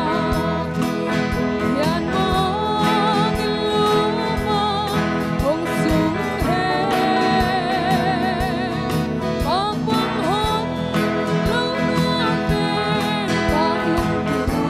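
Live band playing a song: a lead singer holding notes with vibrato and sliding between pitches over electric and acoustic guitars, keyboard and a drum kit keeping a steady beat.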